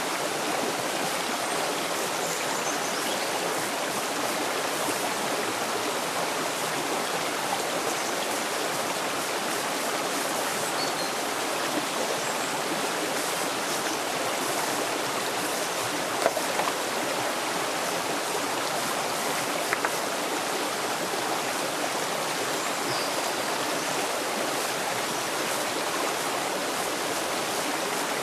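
Shallow rocky stream running over stones: a steady rush of water, with two brief sharp ticks a little past halfway.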